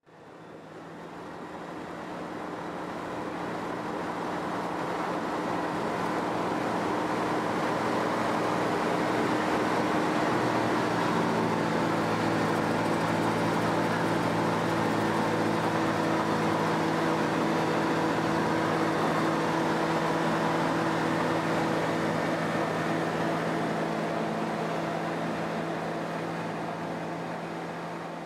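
Ultralight aircraft's engine and propeller running steadily through the takeoff and climb-out, heard from inside the cockpit. The engine note shifts slightly about eleven seconds in. The sound fades in at the start and fades out near the end.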